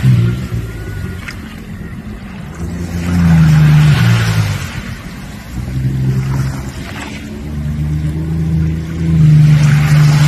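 Jet ski engine running in surges, swelling three times as the throttle is opened and eased off, with a rushing hiss at each surge.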